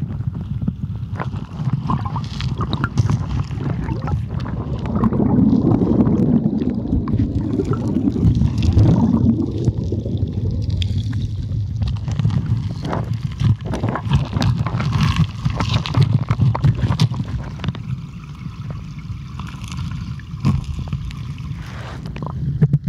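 Muffled rumble and rush of river current heard through a camera submerged in the water, with scattered clicks and gurgles, swelling louder for a few seconds partway through.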